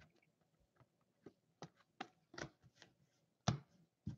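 Trading cards being handled and flipped through by hand: a few faint, scattered clicks and taps, the loudest about three and a half seconds in.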